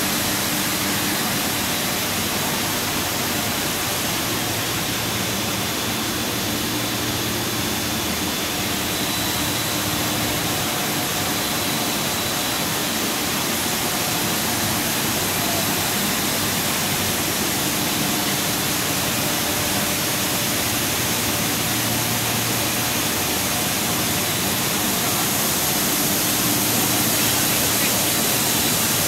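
Steady rushing noise of a running SJZ80/156 wood-plastic profile extrusion line, with its electric motors, cooling fans and pumps running together, and faint steady hum tones above it.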